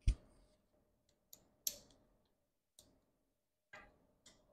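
Steel socket wrench parts, a 12 mm socket on an extension, clinking against the exhaust header flange nuts as they are fitted: a sharp knock at the start, then four lighter metal clicks about a second apart.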